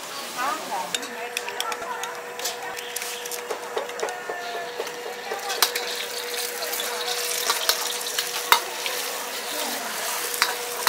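Metal ladle stirring and clanking against a wok while food sizzles in hot oil, with frequent sharp scrapes and knocks. A steady tone runs underneath from about a second in.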